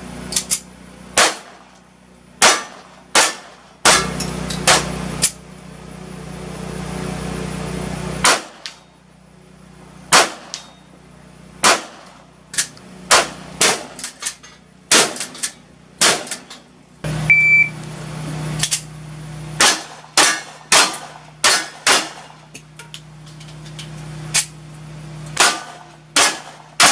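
Rapid strings of gunshots from a cowboy action stage, a handgun and a pump shotgun fired in turn at steel targets that ring after the hits, with a quieter pause while the shooter changes guns. A short high shot-timer beep sounds about seventeen seconds in, signalling the start of a string.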